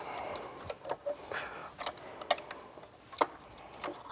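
A handful of short sharp plastic clicks and light rustling as gloved hands move and unclip an engine wiring harness and its connectors. The loudest click comes at the very end.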